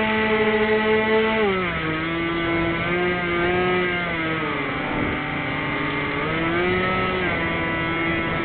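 Twin electric motors and propellers of a Firebird Stratos RC foam plane, heard from its onboard camera, whining steadily. The pitch drops about a second and a half in as the throttle eases, sags a little more in the middle, then starts to climb near the end, with wind rushing over the microphone.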